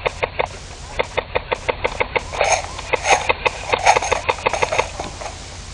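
Airsoft guns firing: a rapid, irregular string of sharp pops, thicker and louder between about two and five seconds in, then thinning out.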